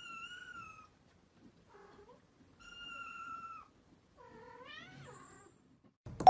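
Kitten meowing three times in a high voice: two steady calls about three seconds apart, then a rising call. A bright chime rings out at the very end.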